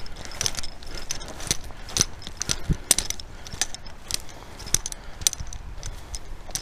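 Irregular light metallic clicks and jingling from gear carried by someone walking, several small ticks a second.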